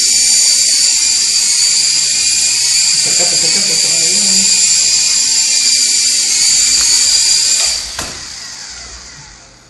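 Small toy RC coaxial helicopter's electric rotor motors running with a steady high-pitched whine. Near the end the whine drops off with a click as the helicopter sets down, then fades as the rotors spin down.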